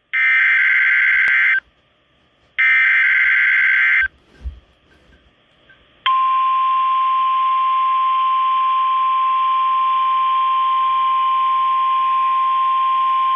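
Emergency Alert System SAME header tones from a NOAA Weather Radio broadcast: two harsh, modem-like data bursts of about a second and a half each, a second apart. About two seconds later the steady 1050 Hz weather radio warning alarm tone starts and holds, signalling a warning-level alert.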